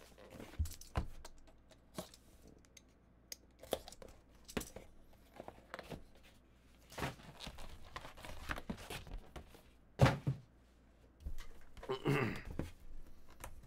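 Cardboard trading-card box being opened and its paper inserts handled: scattered rustles, taps and scrapes, with one louder thump about ten seconds in.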